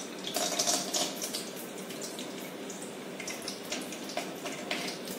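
Desi ghee sizzling and crackling in a hot pan on a gas burner, with irregular sharp pops over a steady hiss. There is a dense flurry of pops about half a second in.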